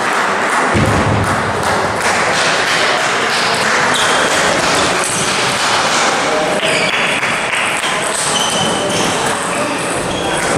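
Table tennis balls clicking off bats and tables across a busy hall full of matches, over a constant hubbub of background voices, with a few short high squeaks.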